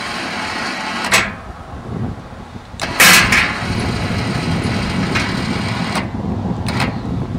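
A few sharp knocks and one louder clatter about three seconds in, from the steel parts of a pickup-bed motorcycle lift being handled, over a low steady rumble.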